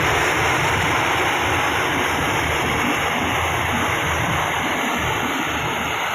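Combine harvester running steadily: a dense, even machine noise with a low engine hum beneath it, holding level throughout.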